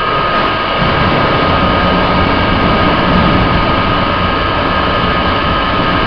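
Steady machine hum with a high, even whine from the lab's running equipment, joined about a second in by water rushing and churning down an open-channel flume as a sliding gate is lifted, releasing a surge wave and a moving hydraulic jump.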